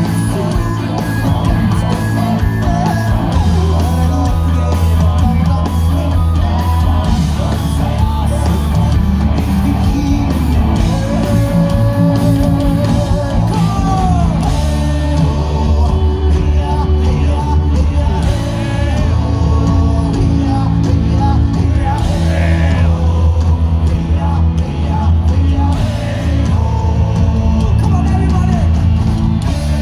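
Metal band playing live through a festival PA, heard from within the crowd: loud, steady, heavy low end with guitars and drums under a singer's vocals and shouts.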